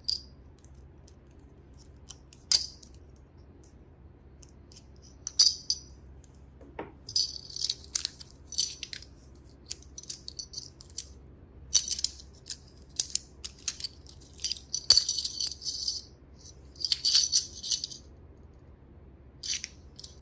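Small plastic toy pieces and packaging being handled: irregular short bursts of rattling and crinkling with sharp clicks in between.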